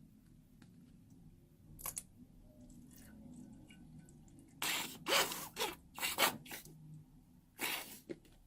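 Slime being squeezed and worked by hand, giving short wet crackles and squelches: one click about two seconds in, then a quick cluster of crackling squelches past the middle, and one more near the end.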